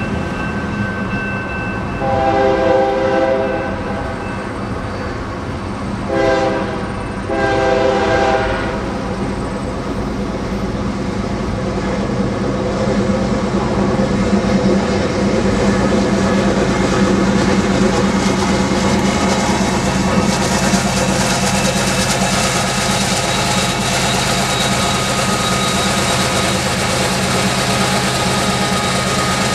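Diesel freight locomotive air horn sounding several blasts with several tones at once: a long blast about two seconds in, a short one around six seconds, then another long one. Under it runs a steady low drone of locomotive diesel engines and wheels on rail, heard from a moving car alongside, which grows louder in the second half as the car draws level with the locomotives.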